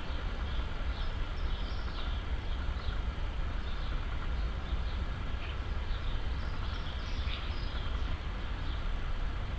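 Distant jet airliner passing high overhead: a low, steady rumble, with small birds chirping now and then.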